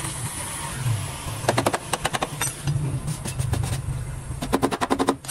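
Gas welding torch hissing steadily as it welds a patch into a rusted rocker panel, over a low steady hum. Two bursts of rapid sharp clicking cut in, about a second and a half in and again near the end.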